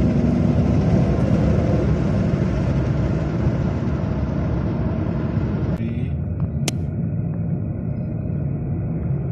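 Steady engine and road rumble heard inside a moving car's cabin as it slows, with a sharp click about two-thirds of the way through.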